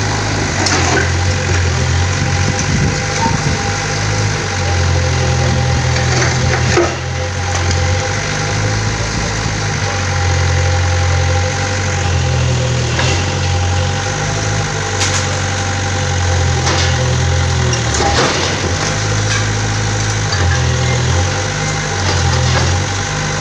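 Kobelco SK50UR mini excavator's diesel engine running loud and steady, its pitch shifting up and down every few seconds as the arm works, with a few sharp knocks as the bucket works at the brickwork.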